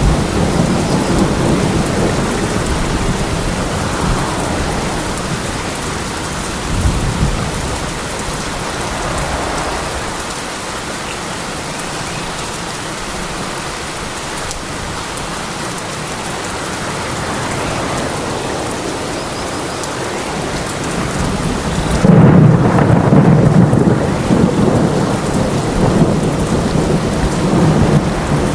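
Steady rain with rolling thunder. The low rumbles ease off through the middle, then a loud thunder rumble breaks in suddenly near the end.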